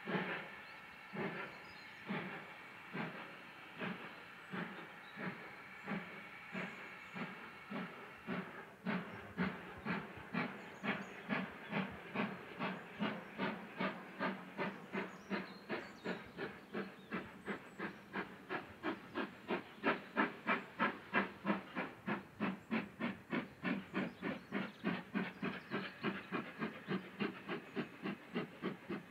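Great Western Manor-class 4-6-0 steam locomotive working hard as it pulls away with its train. The exhaust beats quicken steadily from about one a second to about three a second as it picks up speed.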